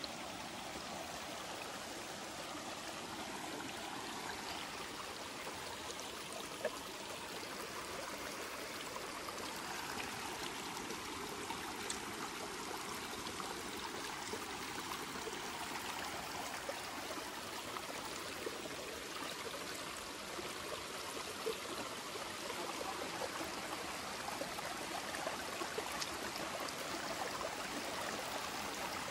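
Water of a rocky stream running over rock slabs and small cascades, a steady rush with a few faint knocks now and then.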